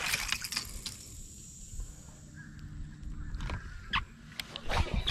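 A released bass splashing back into the river water, then birds calling in the distance and a few sharp clicks near the end.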